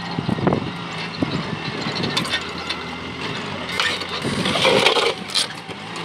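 Farm tractor's diesel engine running steadily as it pulls a disc plough through dry soil, with scattered knocks and clatter from the plough and a brief rush of noise near the end.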